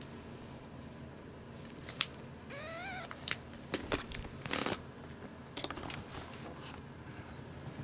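Newborn kitten, a few days old, giving one short wavering mew about two and a half seconds in. Light clicks and rustles of handling on the bedding come and go around it.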